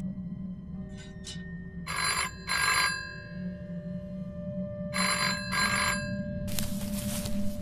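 Telephone ringing in a double-ring pattern: two short rings about 2 seconds in and two more about three seconds later, over a low steady drone. A loud rushing noise takes over near the end.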